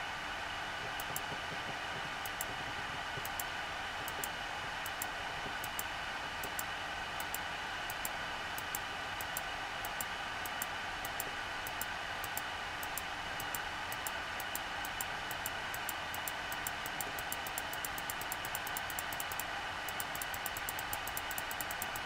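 Steady machine hum and hiss with several steady tones, overlaid by short, sharp high ticks that come about once a second at first and speed up to several a second near the end.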